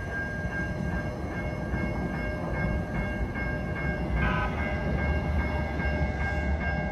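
Siemens S700 light rail train running away down the track: a steady low rumble with a faint steady whine. A short horn-like blip sounds about four seconds in.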